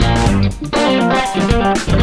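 Background music: a guitar-driven track with electric guitar and bass playing a steady beat.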